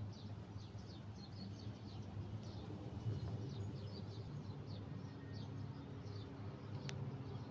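Small birds chirping, many short high chirps that slide downward, repeating throughout over a steady low rumble.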